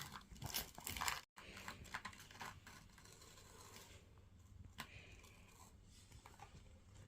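Faint scraping and rustling of sand being played with in a box, with a few small clicks, strongest in the first second.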